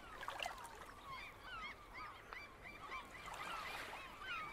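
A flock of gulls calling: many short, high calls overlapping, several a second, faint over a low hiss.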